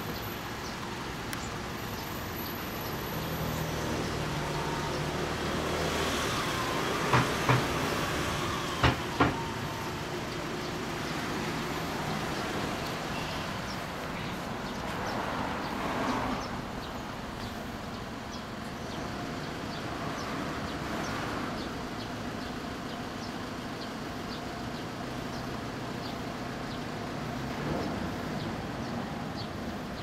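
A 2015 Yamaha XJR400R3's air-cooled inline-four idling steadily through its aluminium silencer. Two pairs of sharp knocks come about seven and nine seconds in.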